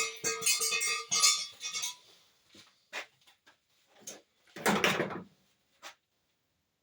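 Clattering and knocking of metal tools and parts being handled: a quick run of clicks and rattles at first, scattered single knocks, and a louder scraping clatter about five seconds in.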